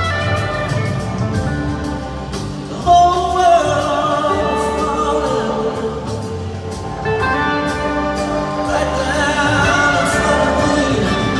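A live rock band playing in an arena, with organ and trombone and several voices singing together.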